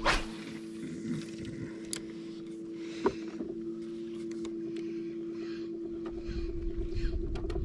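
Electric trolling motor on a kayak humming steadily. A whoosh of a spinning rod being cast comes right at the start, a single click about three seconds in, and a low rumble of wind on the microphone builds near the end.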